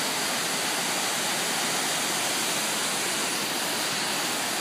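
Waterfall: river water rushing steadily over wide rock ledges, an even hiss with no breaks or changes.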